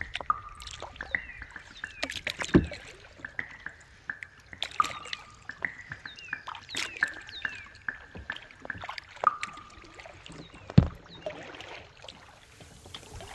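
Kayak paddling on calm water: the paddle dipping and dripping with small clicks and splashes, and two louder thumps, about a fifth of the way in and again near the end.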